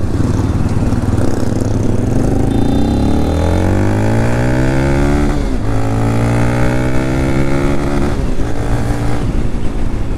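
TVS Apache RTR 200 4V's single-cylinder engine pulling away under acceleration, its revs climbing for a few seconds. The revs drop sharply at a gear change about five and a half seconds in, rise again, then ease off about eight seconds in.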